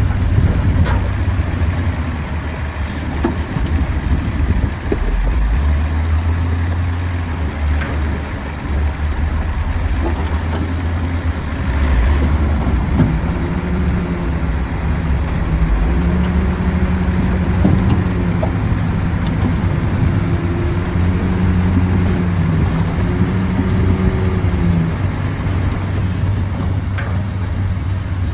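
Heavy diesel engine of a bulldozer running under load with a steady low rumble; from about halfway through, a steadier higher-pitched hum rides over it for several seconds.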